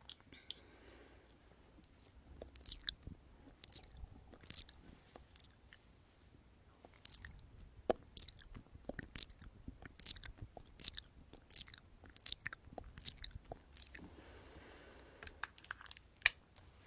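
Close-up mouth sounds made with the lips right at the microphone: sharp, irregular lip smacks and mouth clicks, roughly one a second, with softer rustling near the start and end.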